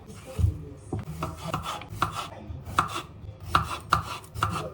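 Repeated sharp knocks, about three a second and unevenly spaced, each with a dull low thud under it.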